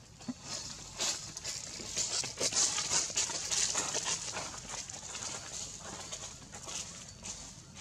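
Animal calls: a busy, irregular run of many short, high-pitched chirps and squeaks.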